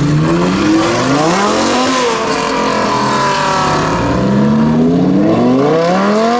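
Lamborghini Huracán's V10 engine through a Capristo exhaust, accelerating hard and loud: the engine note climbs, drops about two seconds in, then climbs again from about four seconds in.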